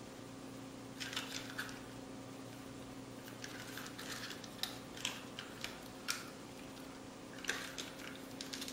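Irregular plastic clicks, taps and short scrapes of a toy RC car being worked apart by hand, in scattered bunches with a few sharper snaps, over a faint steady hum.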